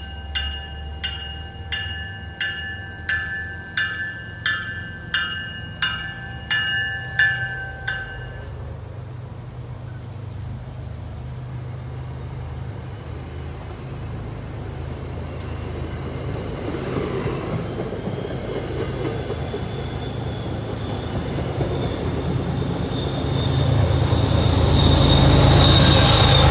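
A warning bell rings about one and a half strokes a second as an MBTA Commuter Rail push-pull train comes in cab car first, and stops about eight seconds in. Then the coaches roll past with a low rumble that swells to its loudest near the end, as the diesel locomotive at the rear draws level, with a thin high squeal over it.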